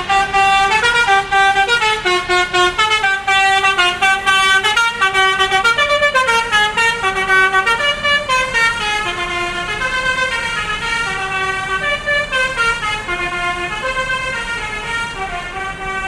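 Basuri telolet bus horn playing a quick melody of stepped musical notes, starting abruptly and fading slowly in the second half as the bus moves off.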